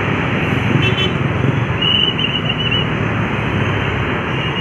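Heavy road traffic with buses passing: a dense, steady mix of engines and tyre noise, with a brief high tone about two seconds in.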